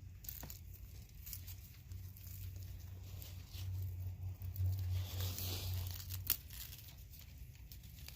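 Corn husk rustling and tearing as an ear of corn on the stalk is peeled open by hand to check its kernels, with a sharp click about six seconds in.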